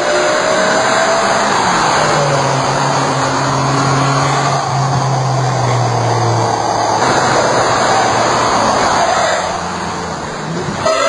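Sports car engine running hard on a race circuit, a loud rushing sound with a steady low drone for a few seconds in the middle. The sound eases about ten seconds in before cutting off abruptly.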